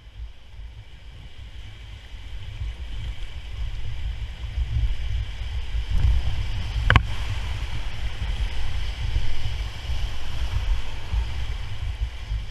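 Whitewater rapid rushing around a paddled inflatable raft, a steady rush over a heavy low rumble, growing louder over the first few seconds as the raft runs into the rapid. A single brief sharp knock about seven seconds in.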